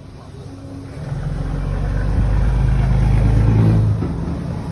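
A heavy engine running, growing louder over about a second, holding steady, then dropping off suddenly near the end.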